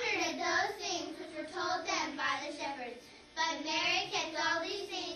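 Children singing together, with a short break about three seconds in before they carry on.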